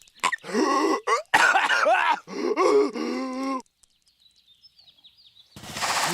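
Cartoon character's exaggerated coughing: a few short sharp coughs, then strained, drawn-out groaning and hacking whose pitch bends up and down. After a quiet pause with faint high squeaks, a loud harsh burst begins near the end.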